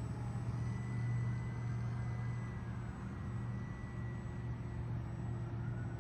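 Twin-propeller radio-controlled E-2D Hawkeye model plane flying overhead: a steady low propeller drone with a faint thin motor whine above it that rises and then falls near the end as the plane passes.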